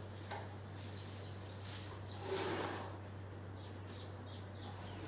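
Small birds chirping, two quick runs of short falling chirps, over a steady low hum, with a short breathy rush about halfway through.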